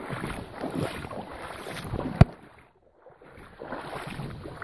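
Water sloshing and splashing in a shallow creek, with wind on the microphone. A sharp click comes about two seconds in, and just after it the sound drops almost to nothing for under a second.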